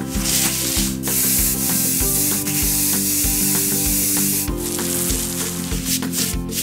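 Paint-spray transition sound effect: a long, even spray hiss from about a second in until about four and a half seconds, with shorter rubbing, splattery hits around it, over background music with a steady beat.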